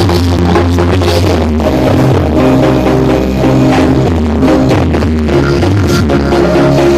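Very loud, bass-heavy music from the Blizzard Audio horeg carnival sound system, playing with a steady driving beat and strong sustained bass.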